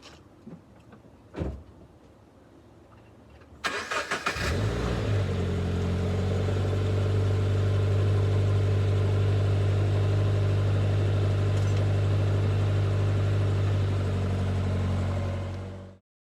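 Toyota 86's flat-four boxer engine being started: a single knock, then a short burst of starter cranking about three and a half seconds in, after which the engine catches and idles steadily until the sound cuts off suddenly near the end. The owner is checking it for an abnormal noise.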